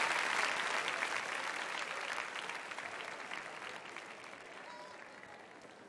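Audience applauding in a large hall, the clapping loudest at first and dying away steadily to near quiet.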